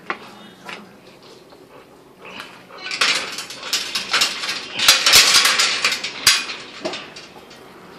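Metal security gate rattling and clanking as it is handled and shut: a few light clicks, then about four seconds of dense metallic rattling and clinking, ending in a sharp clank.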